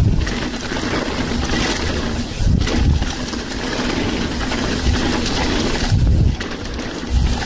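Mountain bike rolling fast down a dirt trail: steady tyre and drivetrain noise from the bike, with gusts of wind buffeting the microphone in several low thuds.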